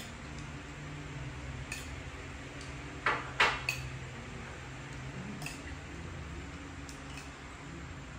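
Tableware sounds at a meal: chopsticks and a spoon knocking lightly against ceramic bowls and plates, with two louder, brief scraping clatters about three seconds in.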